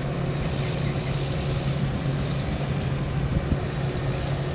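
Kubota DC95 diesel engine of a tracked rotary tiller running steadily as it tills, heard as an even, low drone.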